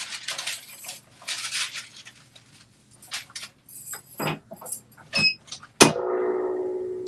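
Paper rustling as sheets are laid over a canvas tote bag, a couple of light metallic clinks, then a clamshell heat press is pulled shut with one sharp clack and a ringing tone that fades over about a second and a half.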